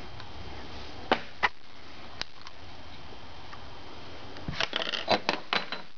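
Handling noise: two sharp clicks about a second in, then a quick run of clicks and rustling near the end, over a steady low hiss.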